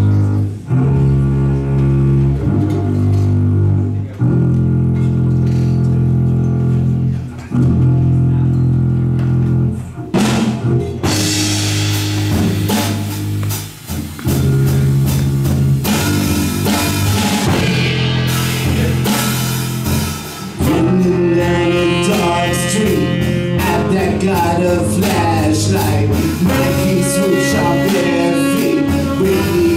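Live jazz band with piano, double bass and drum kit. Low sustained chords open the piece, then the drums and cymbals come in about ten seconds in. A wavering melody line joins over them about twenty seconds in.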